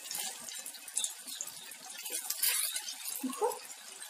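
Urad dal vadas deep-frying in hot oil in a kadhai, a steady sizzle with fine crackling, after being turned with one side already fried.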